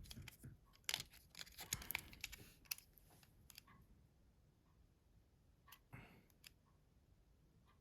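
Faint, scattered clicks and light handling noises from a partly reassembled mobile phone being handled, several in quick succession over the first three seconds or so and a few more about six seconds in.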